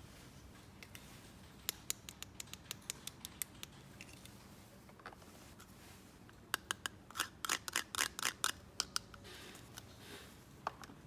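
Small toys and their packaging being handled: quick sharp clicks and taps in two flurries, the second denser, then a brief rustle or scrape near the end.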